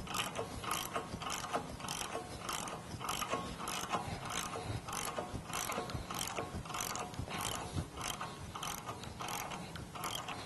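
Hand ratchet wrench and socket cranked back and forth on a lug nut, the pawl clicking in a steady rhythm of about two strokes a second. The nut is being run down over stacked washers to pull a splined wheel stud into its bracket. The clicking stops near the end.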